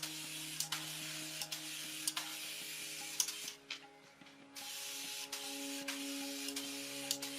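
A steady hiss in two long stretches, broken by a pause of about a second a little after the middle, with small clicks through it, over background music.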